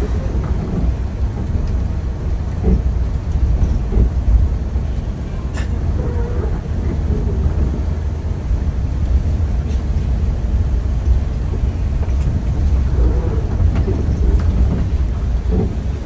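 Low, steady rumble of a coach's engine and tyres on a wet road, heard from inside the cabin near the front, with a few faint clicks and rattles.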